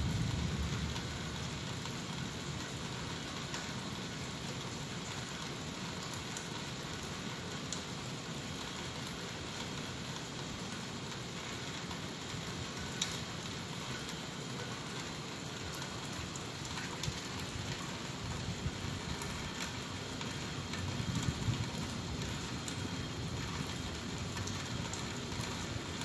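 Steady rain falling, with scattered drop ticks, and a low rumble of distant thunder that swells near the start and again about twenty seconds in.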